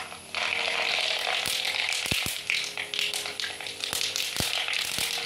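Mustard seeds frying in hot sesame oil: a steady sizzle that starts about a third of a second in, with scattered sharp pops and crackles as the seeds begin to burst.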